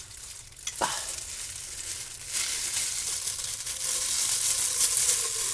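Thin disposable plastic gloves crinkling and wet raw chicken pieces squishing as they are handled in a bowl: a rustling hiss that grows louder about two seconds in, with a short squeak about a second in.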